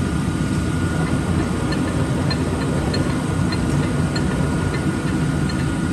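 Large Poreba gap-bed engine lathe running with its four-jaw chuck turning: a steady low mechanical hum with a thin high tone over it, and faint light ticks about three a second around the middle.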